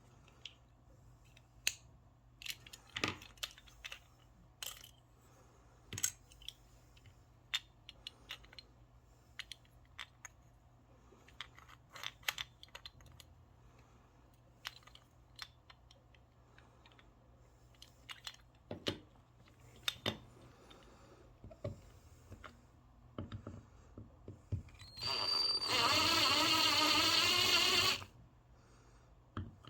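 Scattered light clicks and taps of small hard parts being handled, then a small electric power tool runs steadily for about three seconds near the end.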